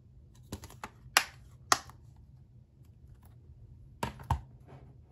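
A plastic 4K Blu-ray case being shut, with a few light clicks and then two sharp snaps as the lid latches closed, followed near the end by two knocks as the case is set down on a desk.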